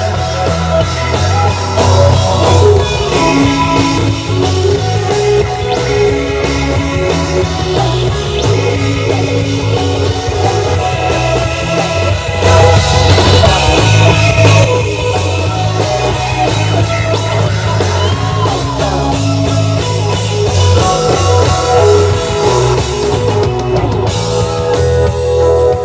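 Rock band playing: electric guitar over a drum kit and a steady low bass line, loud and unbroken.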